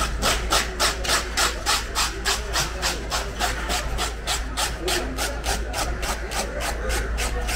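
Knife scraping along the skin of a large cobia in quick, even strokes, about four a second: the fish being descaled.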